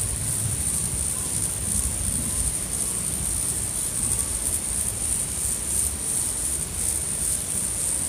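Outdoor ambience: a steady high-pitched hiss with a faint flutter over an uneven low rumble.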